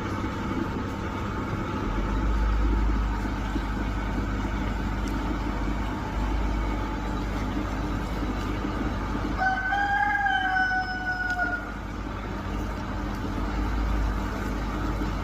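A rooster crows once, a pitched call of about two seconds that rises slightly and then falls, over a steady low background rumble.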